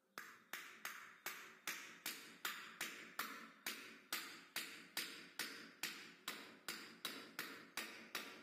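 Wooden end of a hammer handle tapping lightly and repeatedly on a ball bearing to seat it in a ceiling fan's aluminium end cover, about three even taps a second, each ringing briefly.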